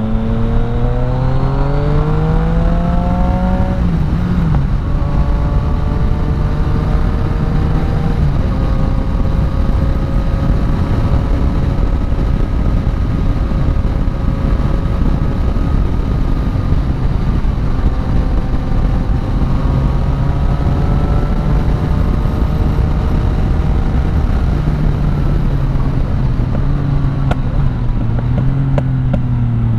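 Yamaha MT-09 Tracer 900's inline three-cylinder engine with an Akrapovic exhaust, rising in revs for the first few seconds under acceleration. It then holds a steady cruising note through the middle and eases off toward the end.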